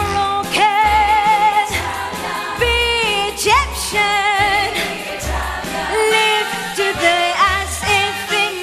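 A woman singing with a wavering vibrato over a band, backed by a bass line that pulses in a steady beat.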